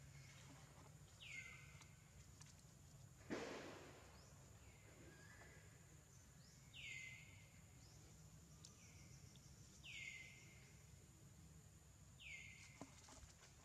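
Faint high animal call that slides down in pitch and then holds briefly, heard four times a few seconds apart over quiet outdoor background, with a short loud rustle about three seconds in.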